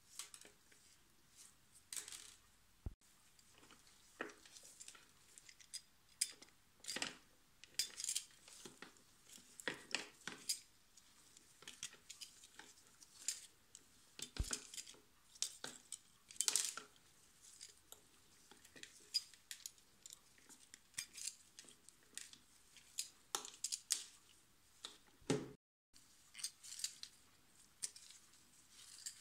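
Irregular small clicks, clinks and snips of close-up handwork: needle-nose pliers working small metal pins out of a model ship's hull, and the model's small parts and rigging tapping and rattling against a plastic tray. The sound cuts out briefly about 25 seconds in.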